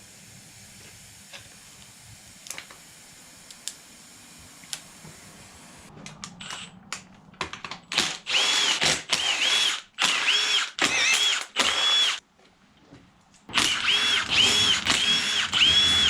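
Cordless power tool spinning out engine bolts in a string of short trigger bursts, its motor whining up and back down with each one. A few faint clicks come before it.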